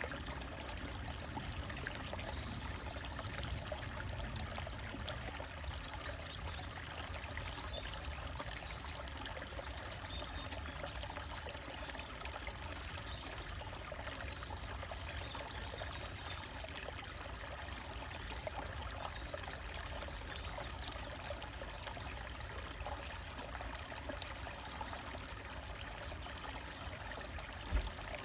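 Small woodland stream trickling and splashing steadily over rocks, with faint bird chirps now and then and a single low thump near the end.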